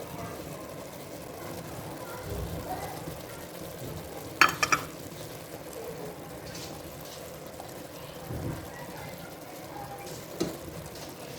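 Zarda rice cooking down in sugar syrup in a pot, a soft steady sizzle, as it is stirred. A quick cluster of sharp knocks against the pot about four and a half seconds in, and a single one near the end.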